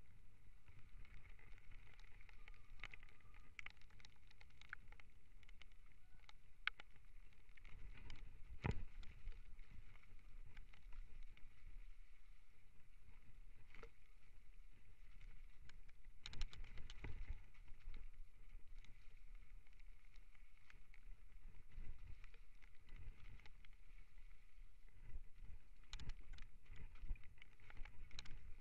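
Mountain bike riding down a forest trail: a steady low rumble of tyres and air, with sharp knocks and rattles from the bike over rough ground that bunch up about 9, 17 and 27 seconds in.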